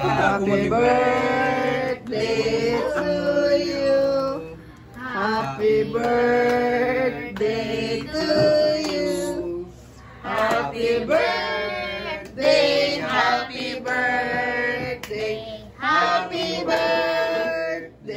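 A group of men and women singing a birthday song together, in several sung lines with short pauses for breath between them.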